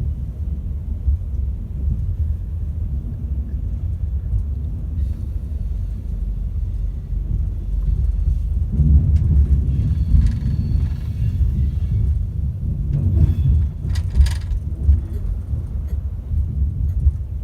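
Class 390 Pendolino electric train running, heard inside the carriage from above the traction motors: a steady low rumble of motors and wheels on the track. It grows louder a little before halfway, with a brief rattle about three-quarters through.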